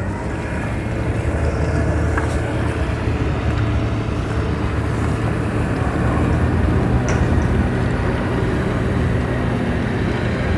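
Twin Yamaha outboard motors on a center-console boat running at low speed, a steady low hum.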